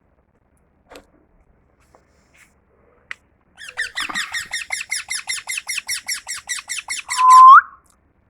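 Pet parrot chattering: a rapid run of repeated chirps, about six or seven a second, ending in one loud, drawn-out whistle that rises sharply at the end. A few faint clicks come before it.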